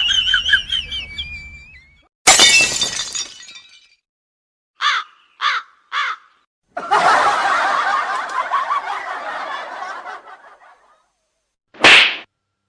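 A string of comedy sound effects. A thin wavering whistle-like tone is cut off by a loud crash of something breaking about two seconds in. Three short squeaky blips follow, then a few seconds of dense, busy noise, and one short burst near the end.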